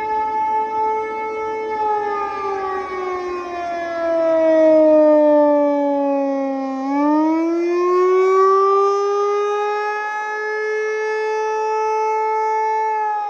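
Outdoor tornado warning siren sounding a test wail. Its pitch slides slowly down, sweeps back up about halfway through, holds, then begins to fall again near the end.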